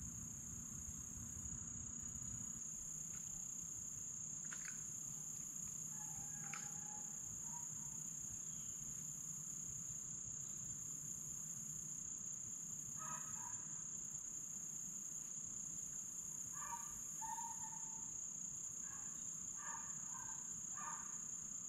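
Steady high-pitched chorus of crickets, with short bird chirps scattered through the second half.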